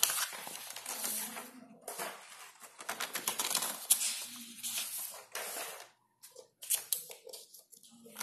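Sheets of paper rustling as a page is lifted and turned over, with light clicks and taps in between.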